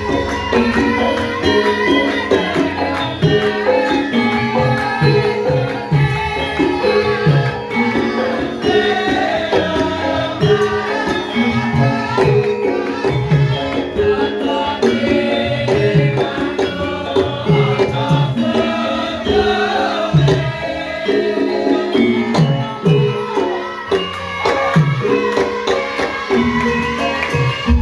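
Live Javanese gamelan music for lengger dance: metallophones ringing in steady interlocking notes over quick, heavy hand-drum strokes.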